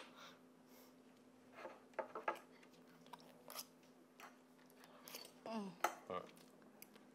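Scattered light clinks and scrapes of knives and forks on plates as pancakes are cut and eaten, over a faint steady hum. A brief murmur from one of the diners comes about five and a half seconds in.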